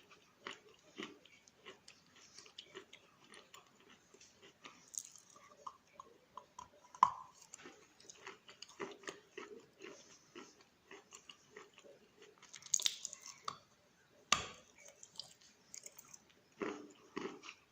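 Close-up chewing and crunching of wet Khrapovsky chalk in the mouth: many small irregular crunches, with a few louder bites, the sharpest about seven seconds in.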